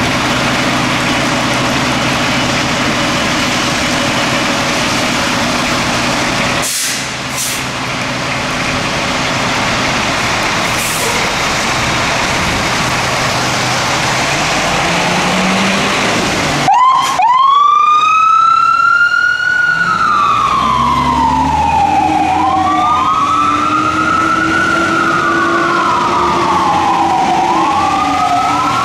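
A fire engine's engine runs steadily under street and rain noise, with its pitch rising shortly before the siren starts. About seventeen seconds in, the fire engine's siren starts wailing, its pitch sweeping slowly up and down over and over, with the truck's engine running underneath.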